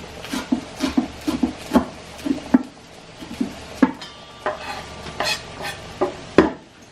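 Kitchen knife chopping green onions on a wooden cutting board: quick knocks at about three a second, then slower, scattered ones. A single sharp knock near the end is the loudest.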